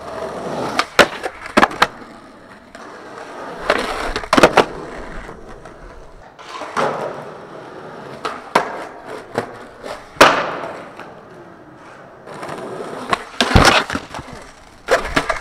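Skateboard wheels rolling on rough concrete, broken by sharp cracks of the tail popping and the board landing, repeated across several tries. Near the end comes a louder burst of impacts as a skater slams and the board clatters away.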